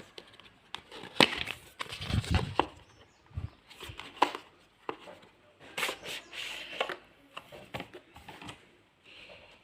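Earbud retail packaging being handled and opened by hand: irregular clicks, taps and rustling throughout.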